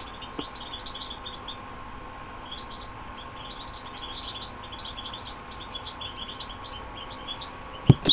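Faint, high, scattered songbird chirps over a steady low hum. At the very end a click, then a loud, fast run of repeated high bird-song notes begins.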